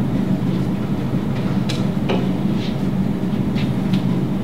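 Steady low hum of room noise, with a few faint clicks partway through.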